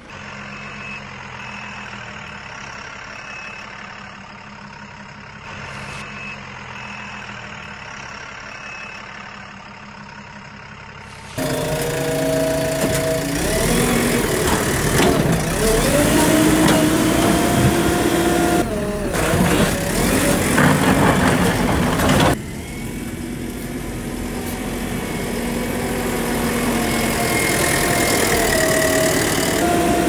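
Heavy-vehicle engine sound effects. For the first eleven seconds or so an engine runs with a repeating reversing beep. Then it cuts abruptly to a much louder engine revving up and down in pitch, and about 22 seconds in it switches again to a steady engine slowly growing louder.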